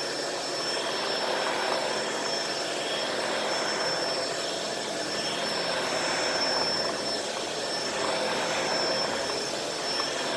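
Shark Powered Lift-Away upright vacuum running on low-pile carpet, its motor and powered brushroll making a steady drone with a thin high whine, swelling and easing slightly as it is pushed back and forth over the carpet, picking up debris.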